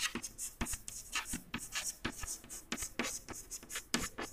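Chalk writing on a blackboard: a quick, irregular run of short scratches and taps as a word is written.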